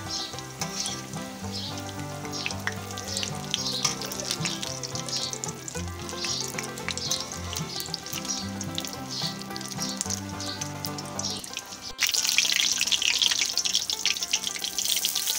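Samosas deep-frying in hot oil in a metal karahi: a steady sizzle with many small pops. Soft background music runs under it until about twelve seconds in, when the music cuts out and the sizzling gets louder.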